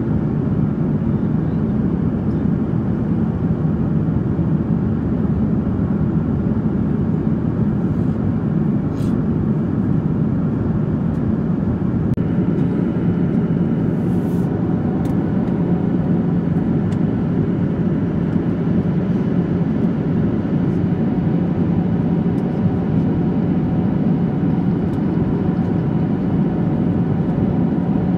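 Steady cabin noise inside a Boeing 737-800 in flight: the even rush of airflow and the drone of its CFM56 turbofan engines, with a low steady hum underneath. A faint high tone joins about halfway through, and there are a couple of faint clicks.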